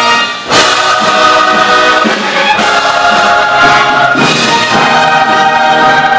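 Live orchestra and massed choir performing together, the choir singing full-voiced over the orchestra. After a brief dip, a loud full chord comes in about half a second in and the music carries on.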